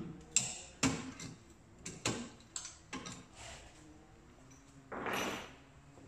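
A run of sharp metal clicks and knocks as the small key-locked safe inside the bottom of a steel gun cabinet is worked shut and locked, followed about five seconds in by a half-second rustling scrape.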